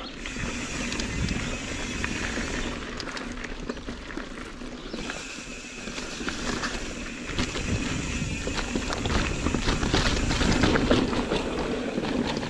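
Mountain bike riding a dirt singletrack: tyres running over the trail with chain and frame rattling over bumps, as heard from a camera on the rider. It grows louder and rattlier in the second half.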